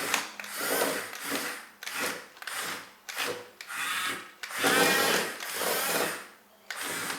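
Electric drive motors and gearboxes of a die-cast radio-control bulldozer whining in several short bursts as it is driven, the pitch rising and falling as it starts and stops.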